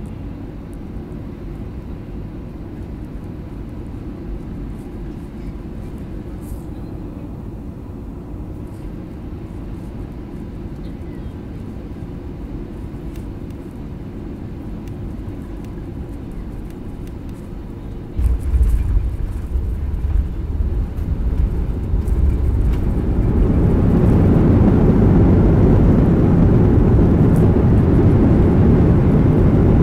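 Airbus A320-200 cabin noise on landing. Steady engine and airflow noise on short final, then about eighteen seconds in the main wheels touch down with a sudden jump in low rumble from the tyres rolling on the runway. A few seconds later a loud, rising rush of engine noise sets in and holds to the end: the engines spooling up in reverse thrust to slow the aircraft.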